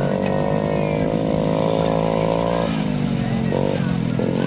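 Small single-cylinder pit bike engine on a three-wheeler being ridden, holding a steady buzzing rev, then easing off about two-thirds of the way in and picking back up near the end. It is weak on power, and the owner says its piston rings are blown.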